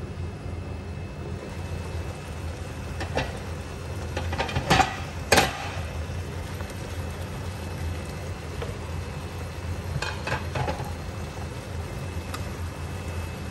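Whole prawns sizzling in a frying pan on an induction hob over a steady low hum. The pan's glass lid is lifted off with a few loud clinks and knocks about five seconds in, and there are lighter clinks of cookware around ten seconds in.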